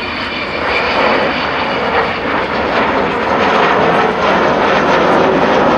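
Avro Vulcan XH558's four Rolls-Royce Olympus jet engines during a display pass: loud, steady jet noise that grows a little louder about a second in.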